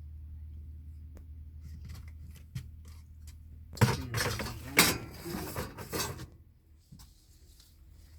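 Metal clinking and clattering from parts or tools being handled, with a loud burst of clatters about four to six seconds in, over a low steady hum that drops away about six and a half seconds in.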